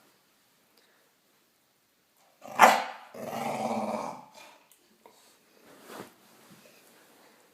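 Staffordshire bull terrier giving one sharp bark about two and a half seconds in, straight away followed by a growl lasting about a second. A fainter short sound from the dog comes near the end.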